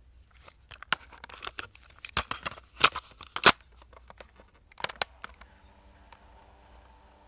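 A cassette being handled and put into a portable Walkman cassette player: plastic rattles and several sharp clicks over the first few seconds. About five seconds in come two more clicks as play is pressed, and then the player's small tape motor runs with a faint steady hum.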